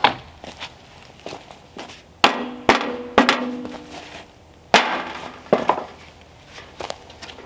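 A black metal stovepipe section being struck on a wooden sawhorse. A few sharp metallic knocks set the pipe ringing briefly, then lighter hammer taps follow.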